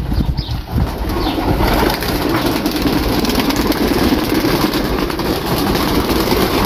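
A loft full of domestic pigeons cooing, with many calls overlapping into one steady sound.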